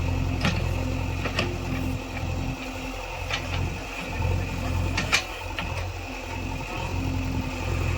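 JCB 3DX backhoe loader's diesel engine running, with several sharp knocks over it; the engine note drops for a few seconds in the middle, then picks up again.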